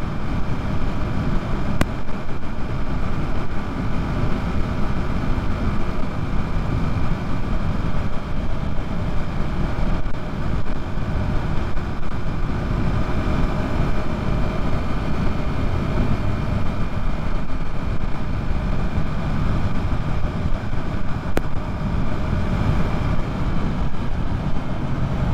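Yamaha MT-03 motorcycle running steadily at highway speed, with heavy wind buffeting on the rider's microphone.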